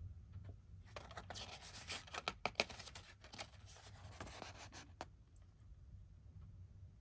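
A DVD and its packaging being handled: about four seconds of rustling and scratching with sharp clicks, starting about a second in.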